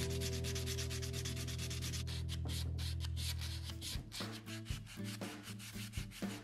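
Sandpaper rubbed by hand over a new wooden handle grip in quick back-and-forth strokes, several a second. Under it a steady low hum stops about four seconds in.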